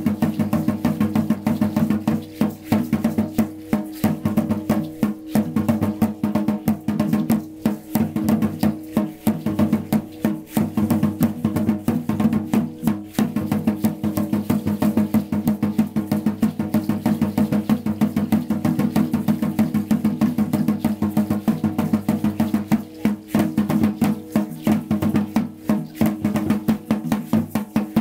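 Dance music with fast, steady drumming and percussion over a sustained drone.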